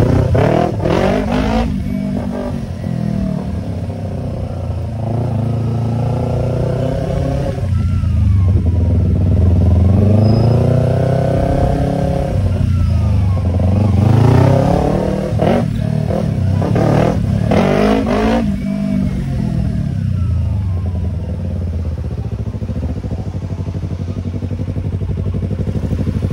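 Yamaha YZF-R25's parallel-twin engine running through a Tiger aftermarket exhaust while riding. The note rises in repeated pulls as the bike accelerates, with brief breaks between pulls, and falls away in between.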